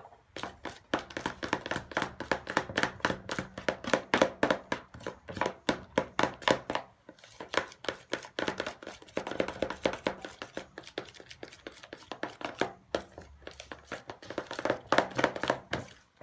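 Spoon stirring thick slime mix of glue, shaving foam and purple food colouring in a plastic mixing bowl, scraping and knocking against the bowl about four times a second. It breaks off briefly about seven seconds in and again about thirteen seconds in.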